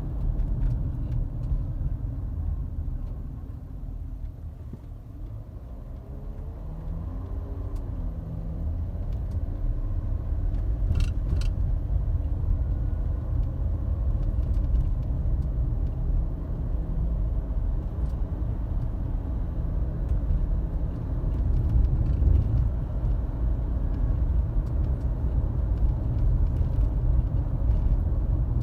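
Low, steady road and drivetrain rumble inside a 2012 Volkswagen Touareg TDI on the move. It eases off a few seconds in and builds back up, with a couple of faint ticks near the middle.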